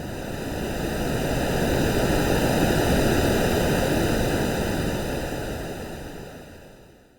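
AI-generated ocean-wave sound: one swell of rushing surf noise that builds over the first two seconds or so, peaks mid-way and fades away near the end.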